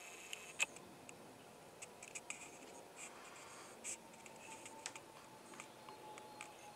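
A scattering of small dry clicks and taps, one sharper click about half a second in: handling noise from the camcorder being held and reframed.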